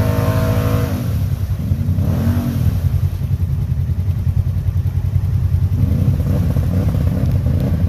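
ATV engine revving as the quad churns, bogged down, through a deep mud hole. The engine rises and falls in pitch twice in the first few seconds, then runs at a lower, wavering pitch.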